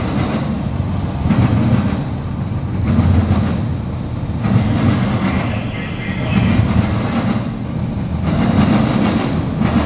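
Freight train cars rolling past on steel wheels: double-stack intermodal container cars, then tank cars. It is a steady low rumble of wheels on rail that swells and fades about every one and a half to two seconds as each car's wheel sets go by.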